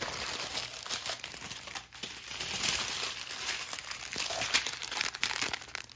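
Thin plastic packets of diamond-painting drills crinkling and rustling continuously as they are handled and sorted.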